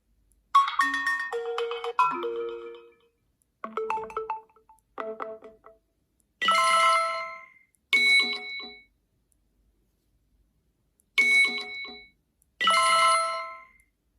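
HTC phone ringtones: a quick run of short electronic melody notes over the first few seconds. Then a two-part chime, a longer tone followed by a shorter one, plays twice, about five seconds apart.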